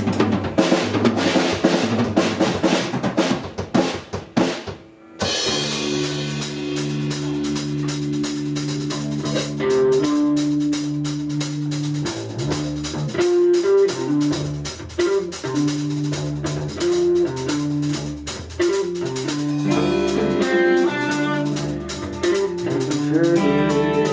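Live rock band starting a song: about five seconds of drums alone, then bass and guitar come in and the full band plays on.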